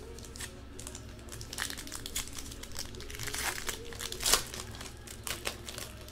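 A trading-card pack wrapper being torn open and crinkled by hand, in a run of irregular crackles with one sharper crackle a little past the middle.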